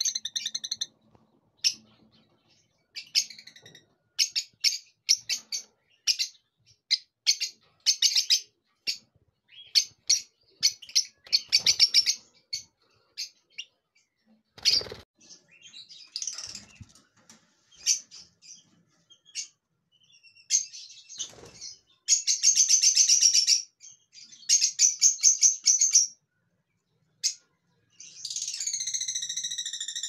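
Caged lovebirds calling: shrill, sharp chirps in quick, uneven runs, with a dense burst of rapid chatter about two-thirds through and a longer drawn-out call near the end. A few dull knocks are heard between the calls.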